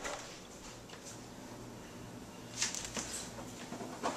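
Quiet room tone with soft footsteps and camera-handling rustle, a few short scuffs about two and a half to three seconds in, over a faint low hum.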